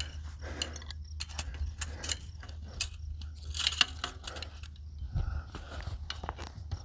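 Barbed wire being twisted and wrapped around itself by gloved hands to splice a fence strand: a run of small metallic clicks, scrapes and rattles, the sharpest cluster about four seconds in. A steady low rumble lies underneath.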